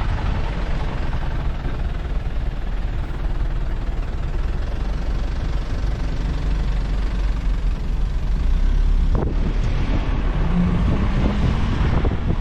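Wind buffeting the microphone over the steady low rumble of a moving vehicle on the road, with a brief knock about nine seconds in.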